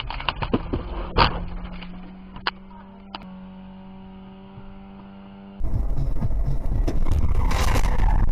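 Dashcam audio from inside a moving car: a few knocks with a sharp bang about a second in, then a steady low hum. Near the end a cut brings much louder rumbling road and engine noise.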